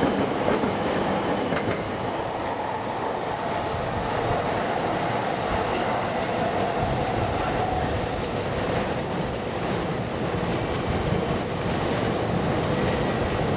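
E5 series Shinkansen rolling slowly over Tokyo Station's tracks and points: a steady rumble of wheels on rail. A thin steady whine rises above it from about two seconds in and fades out after about eight.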